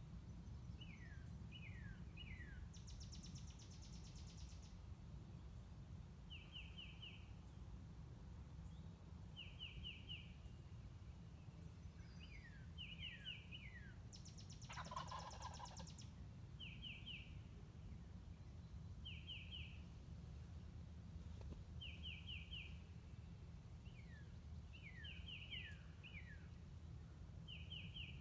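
Wild turkey gobbler gobbling twice, a fast rattling call of about two seconds each, about three seconds in and again about fourteen seconds in, the second one fuller and nearer. Songbirds sing short repeated phrases throughout, over a faint low rumble.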